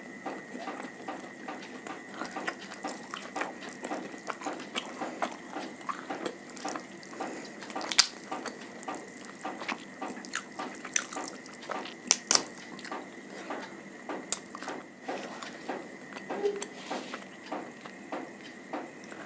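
Close-miked wet chewing and mouth sounds of a person eating, a dense run of small clicks with a few sharper, louder clicks.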